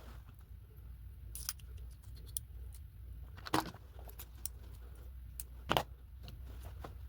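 Keys and small metal locksmith tools clinking and jingling in scattered light clicks, with three louder clinks spread through.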